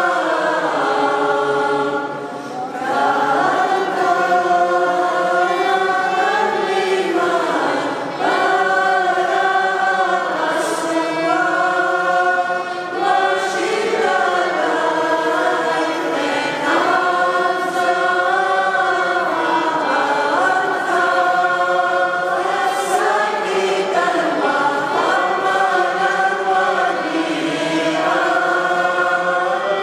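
Mixed church choir of men's and women's voices singing in long held phrases, with brief breaks about two and a half and eight seconds in.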